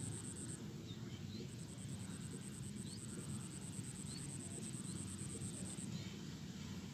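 Insects trilling in a rice paddy: a high, finely pulsed buzz that drops out about half a second in, resumes, and stops again near the end, with a few faint short rising chirps and a low rumble underneath.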